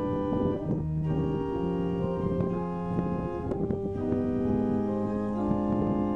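Background music: organ chords held and changing every second or two, with a slowly moving bass line.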